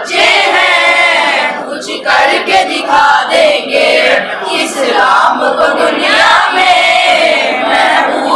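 A group of boys singing an Urdu tarana (anthem) together.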